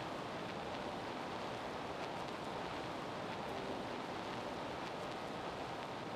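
Steady gymnasium ambience during a basketball game: an even wash of crowd and court noise, with a few faint short knocks.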